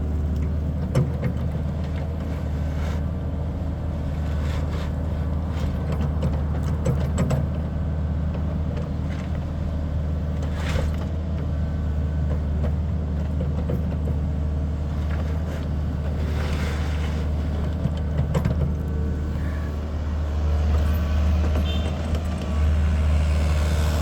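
A vehicle engine running steadily with a low drone, with scattered knocks and rattles; it grows a little louder near the end.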